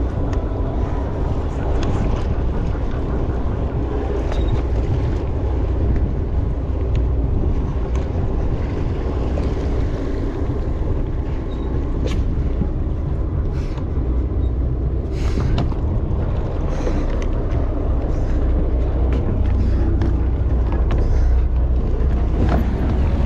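Sportfishing boat's engine running with a steady low rumble, mixed with wind and water along the hull.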